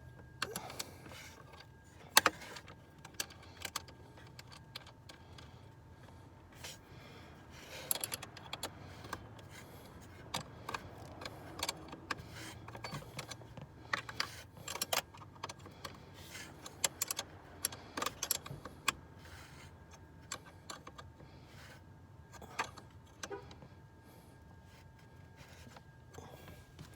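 Irregular metallic clicks and clinks of a 10 mm wrench working the clamp on a car battery's positive terminal, the loudest about two seconds in, with a faint steady high tone behind.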